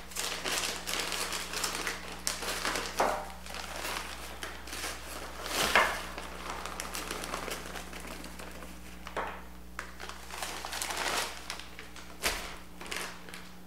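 Plastic bag of light brown sugar crinkling and rustling as it is opened and tipped, with sugar pouring into a plastic measuring cup; the dense crinkling is heaviest in the first six seconds, with the loudest rustle and knock about six seconds in, then scattered lighter crinkles and taps.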